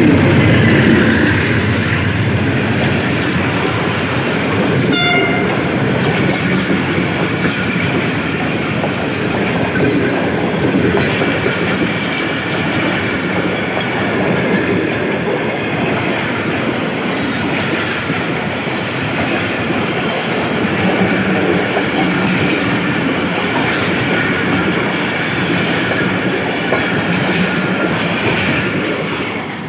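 Pakistan Railways AGE-30 diesel locomotive 6017 chugging as it pulls a passenger train away, with wheels clicking over the rail joints. A brief high tone sounds about five seconds in, and a faint steady whine rises from the wheels later on.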